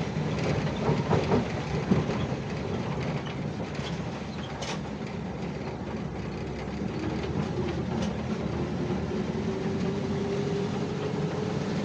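VW Kombi driving, heard from inside the van: the engine runs under a steady road rumble, with scattered knocks and rattles. A faint whine rises slowly in the second half as it picks up speed.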